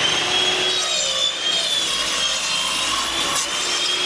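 Table saw running at full speed with a steady high whine while the blade cuts through 3/4-inch birch plywood. The pitch sags a little about a second in as the blade takes the load.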